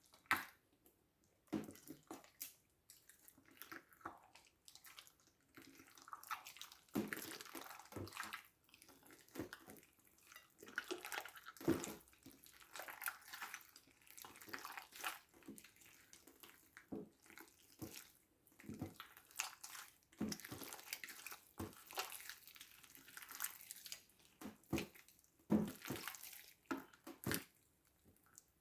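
Slime being squished and mixed by hand: a continual run of wet squelches and sticky pops at an uneven pace.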